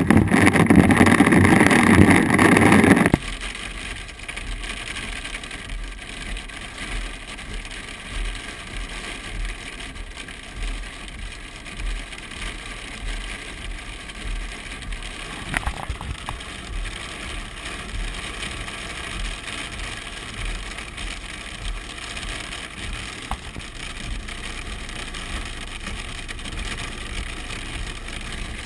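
Storm precipitation, most likely hail, drumming loudly on a vehicle's roof and windshield. About three seconds in it cuts off abruptly to a much quieter, steady hiss of cabin and road noise, with faint low thuds.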